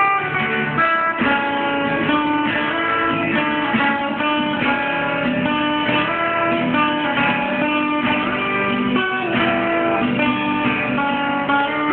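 Instrumental break in a Thai pop song: guitar playing a melody over strummed chords.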